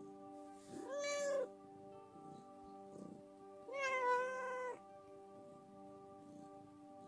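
Orange tabby cat meowing twice, the second meow longer, asking to be petted. Steady background music runs underneath.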